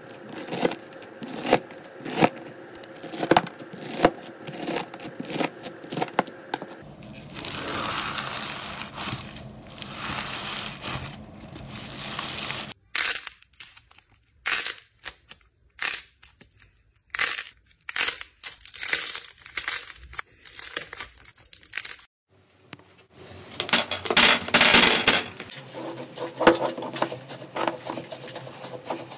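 Slime being squeezed and pressed by hand, giving crackling, crinkly clicks. The texture changes abruptly a few times as one short clip gives way to the next.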